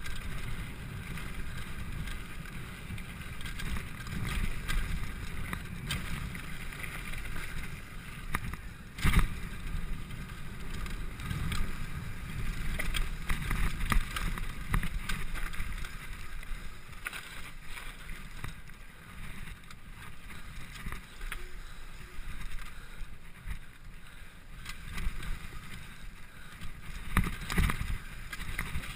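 Mountain bike descending fast on a gravel and dirt singletrack: a continuous rumble of tyres on the trail mixed with wind on the microphone, broken by frequent knocks and rattles of the bike over bumps, the hardest about nine seconds in.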